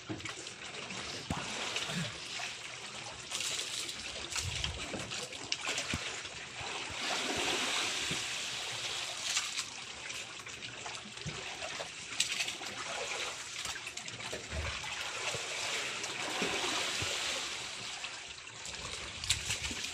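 Sea water lapping and trickling against the side of a small fishing boat: a steady wash with a few faint knocks.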